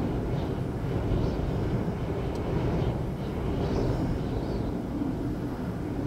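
Gale-force storm wind blowing hard, a steady low rumble that buffets the microphone and rises and falls in gusts.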